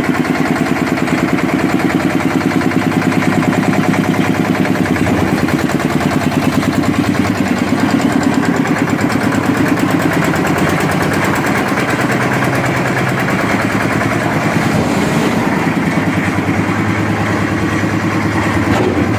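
Engine of a concrete mixer with an attached lift, running steadily with a fast, even pulse.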